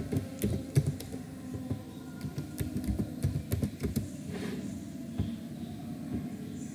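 Typing on a computer keyboard: a quick run of key clicks for about four seconds, then only a few scattered clicks.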